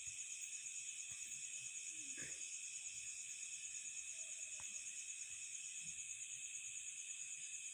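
Faint, steady, high-pitched pulsing trill of insects chirring in the background, with no speech over it.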